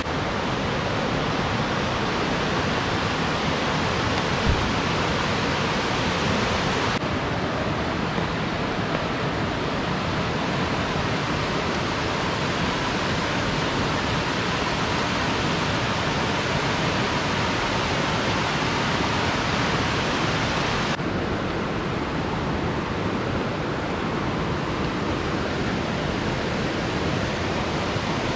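Steady rush of a fast river flowing over rocks, with one brief knock a few seconds in.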